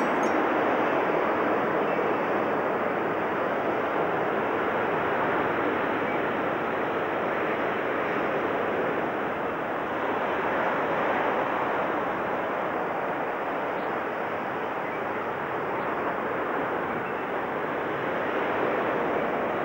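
Steady rushing noise that swells and eases slightly every few seconds.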